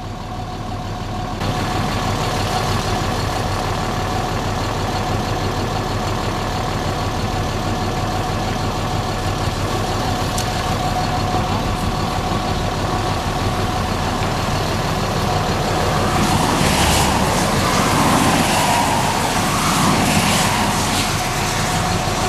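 A motor vehicle's engine idling steadily with a constant hum. The noise swells louder for a few seconds near the end.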